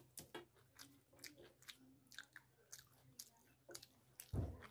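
Quiet, wet chewing and lip-smacking of a mouthful of chicken curry and rice, a run of small sticky mouth clicks. A dull thump comes near the end.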